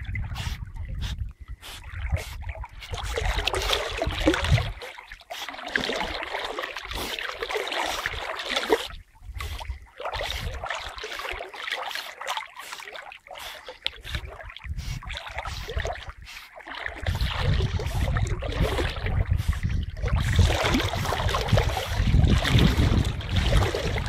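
Water sloshing and splashing close to the microphone as a Siberian husky swims, with low rumbling buffets on the microphone near the start and through the last third.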